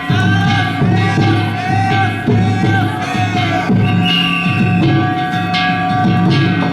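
Danjiri festival music played on the float: a taiko drum beating steadily under clanging hand gongs, with a held, wavering melody line above.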